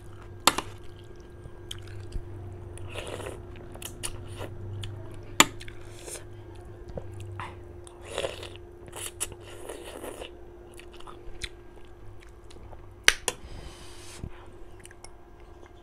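Close-up eating sounds: wet chewing and a long slurp of instant noodles. A few sharp clinks of a spoon against a steel plate, about half a second, five seconds and thirteen seconds in, are the loudest sounds.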